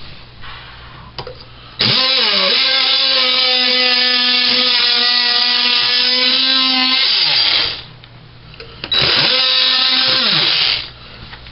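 A Ryobi JobPlus P340 18-volt cordless oscillating multi-tool runs twice with a steady high whine: a long run of about six seconds, then a shorter one of about two seconds. Each run opens with a brief dip in pitch and winds down as the trigger is released. The blade is working at the glue behind a pressed-wood backsplash.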